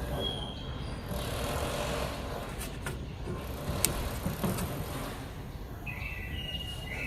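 Steady low background rumble with a few light clicks, as wire terminals are handled and pushed onto a new compressor start capacitor in an air conditioner's outdoor unit.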